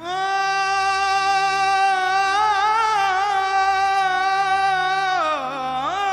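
Background music: a single voice holds one long sung note with small wavering ornaments, dips and rises again near the end, over a low steady drone.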